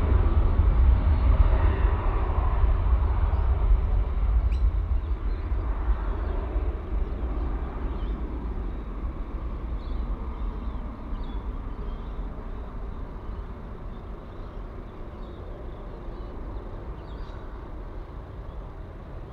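Jet airliner's engine noise, a deep steady rumble that fades away gradually as the aircraft moves off.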